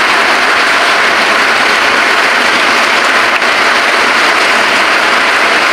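Broth with lemongrass boiling in a non-stick pan: a loud, steady hiss.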